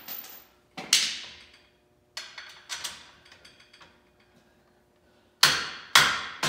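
Hammer striking the steel fittings of a Ford Model T rear axle's radius rods, with each blow ringing. There is one loud ringing clank about a second in and a few light taps and clicks after it. Near the end, steady blows come about half a second apart.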